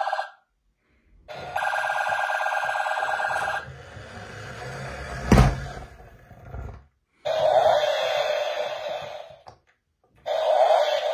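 Battery-powered toy police car playing its electronic siren sound effect, a warbling tone that stops and restarts in three bursts. A single sharp knock comes between the first and second bursts.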